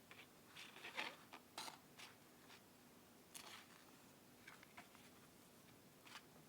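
Faint, brief rustles and light scrapes of paper and cardboard as the information booklet is handled in the SSD's box. Most of them come about a second in, with a few more later.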